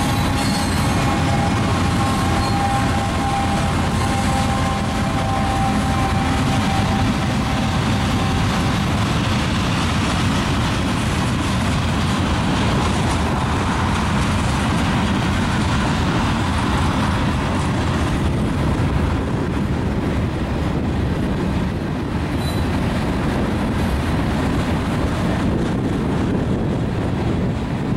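Freight cars of a long train rolling past: a steady rumble and clatter of wheels on rail. A thin, steady high tone sounds over it for the first several seconds and then fades out.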